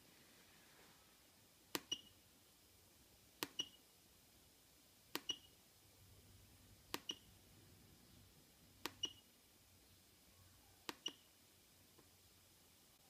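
Enter key on a GCS900-3D digital readout's keypad pressed six times, about once every two seconds, cycling through the setup menus. Each press gives a sharp click followed a fraction of a second later by a short high-pitched tone.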